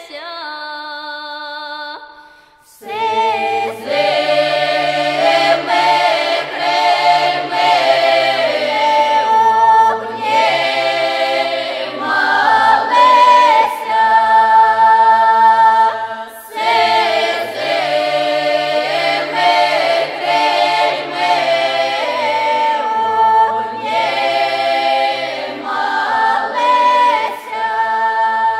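Background music: one piece ends about two and a half seconds in, then a choir starts singing, several voices over a low held note.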